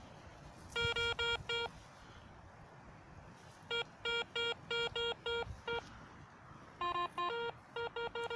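Metal detector beeping in quick bursts of short tones, about four or five a second, as it sounds off on a buried metal target. Near the end a lower and a higher tone break in among the beeps.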